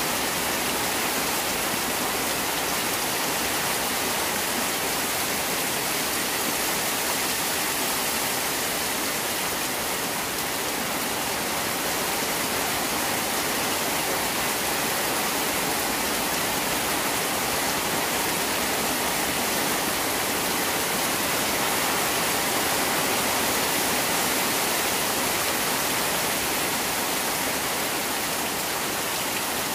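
Heavy rain pouring steadily onto pond water and the concrete pond walls: an even, unbroken hiss of dense rainfall.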